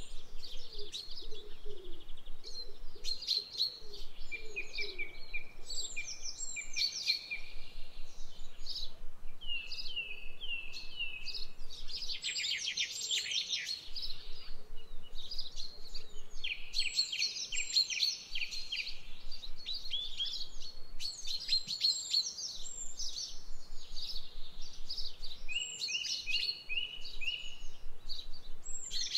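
Several birds singing and calling together, a dense run of chirps, short trills and quick repeated notes, with some lower calls in the first few seconds.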